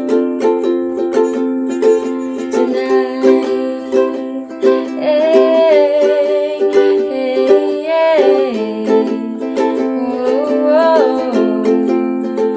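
Ukulele strummed steadily through C, G, A minor and F chords. A woman sings a wordless 'hey-ay, hey-ay-ay-ay' over it. The singing starts a couple of seconds in and stops shortly before the end, leaving the strumming alone.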